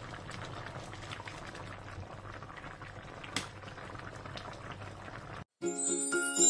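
A pan of tofu stew simmering and bubbling, with soft pops and crackles and one sharper click about halfway. Near the end it cuts off, and a jingly intro tune with bell-like tones begins.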